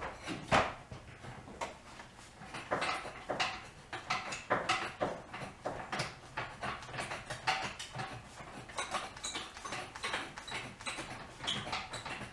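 Irregular metallic clinks and clanks, some with a short ring, from a jack and steel jack stands being handled under a car as it is let down. The loudest clank comes about half a second in.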